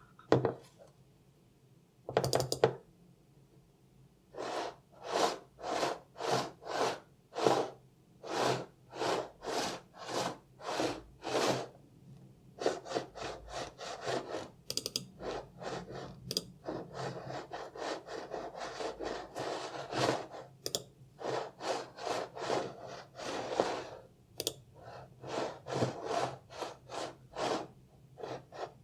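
Apple Magic Mouse slid back and forth across a desk, its base rubbing on the surface in repeated strokes about two a second. There are a couple of sharp knocks in the first few seconds.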